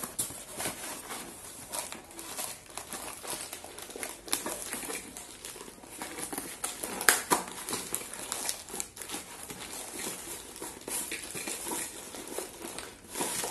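A cardboard parcel being opened by hand: fingers picking and tearing at tough packing tape, with irregular scratching, rips and crinkling of cardboard and plastic wrap. One sharper, louder rip comes about seven seconds in.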